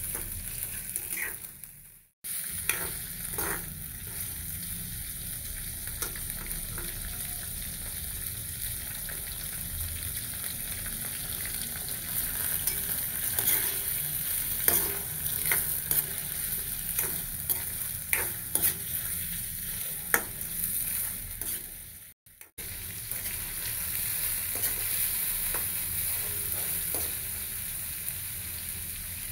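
Mutton pieces sizzling in a karahi (wok) over a gas flame while a spatula stirs them, scraping and clicking against the pan. The sound cuts out briefly twice, about two seconds in and again about two-thirds of the way through.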